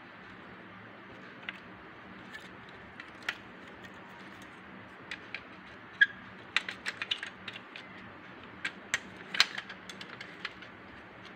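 Small clicks and taps of homemade model combine harvester parts, a header and its reel frame, being handled and fitted together by hand. A few scattered clicks at first, then a quick run of clicks in the second half.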